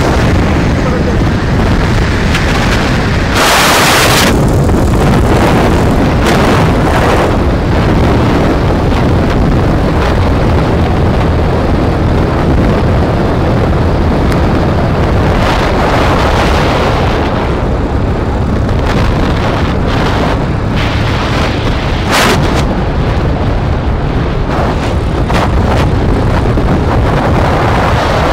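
Heavy wind buffeting on the microphone of a phone held at speed on a Bajaj Pulsar 180 motorcycle, with the bike's single-cylinder engine running underneath. A couple of harder gusts break through, one about four seconds in and a shorter one past twenty seconds.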